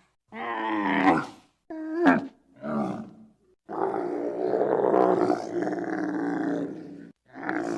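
Giraffe calls: three short, pitched calls, then one long call lasting about three seconds, and another beginning near the end.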